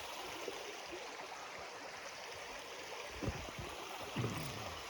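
Steady rushing of a shallow creek's flowing water. Two brief low sounds come over it about three and four seconds in.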